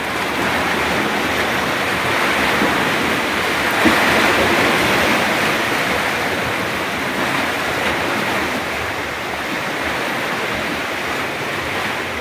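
Steady rush of fast-running sea water, the current strong enough to be called very fast.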